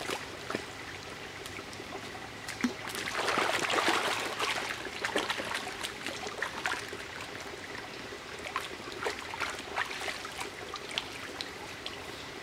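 Splashing and sloshing as wooden sticks are held under and worked about in a shallow stream to soak them, loudest about three to five seconds in, with scattered smaller splashes after, over the steady trickle of the stream.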